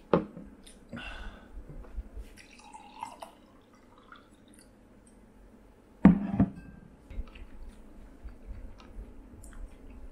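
A small drinking glass knocked onto a table at the start and again about six seconds in, the second knock the loudest, with sake trickling and dripping into the glass in between and small clicks of tableware.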